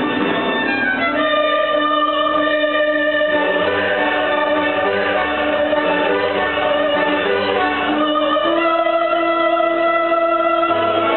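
Live symphony orchestra playing long held chords that shift every few seconds.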